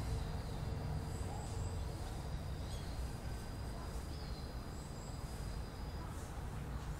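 Outdoor park ambience: a steady low rumble under a few faint, short bird chirps, with a thin, steady high-pitched insect-like tone that stops about five seconds in.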